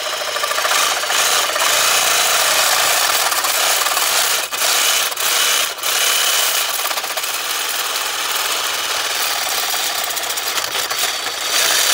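Loud, steady rasping, rubbing noise, with a few brief breaks around the middle.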